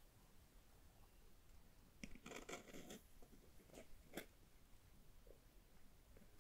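A scalpel blade and gloved fingers work at the clear plastic seal sticker on a phone's cardboard box: about a second of faint crackly scraping, then a few soft clicks, and a sharper click near the end.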